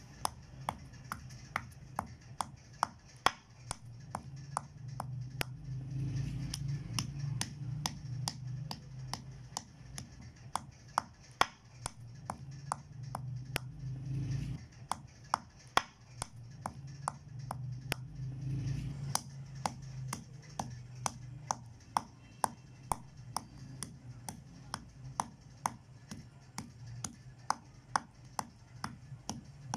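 Dry ginger being pounded to a powder with a pestle: sharp, evenly spaced strikes about two or three a second.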